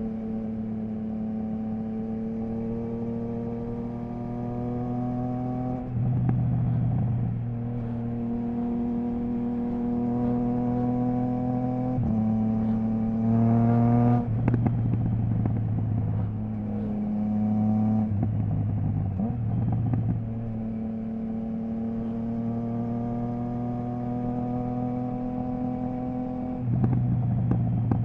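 Triumph Trident 660's inline three-cylinder engine through a Zard stainless full exhaust with the baffle removed, under way: long pulls at steady, slowly rising revs broken every few seconds by sudden changes in engine note as gears change, with a quick climb in revs about halfway through.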